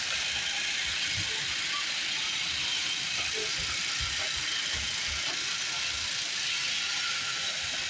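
iRobot Roomba robot vacuum running, a steady whirring hiss from its vacuum motor and brushes, with scattered soft low knocks.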